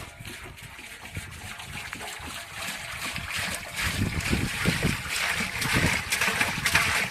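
Water running and splashing, getting louder partway through, with soft irregular thumps underneath.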